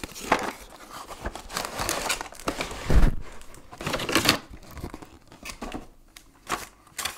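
Cardboard boxes and plastic packaging being handled: irregular crinkling and rustling as a shrink-wrapped plastic tray of miniatures is drawn out of a cardboard box, with a dull thump about three seconds in.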